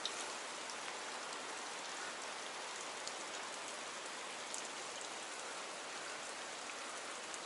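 Steady hiss of river current running along a rocky bank.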